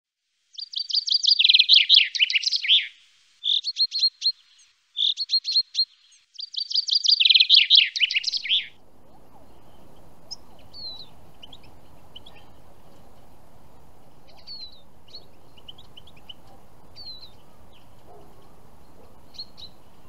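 Common chaffinch singing: four loud song phrases in the first nine seconds, each a rapid trill that ends in a descending flourish. Then steady outdoor background noise with faint, scattered chirps of small birds.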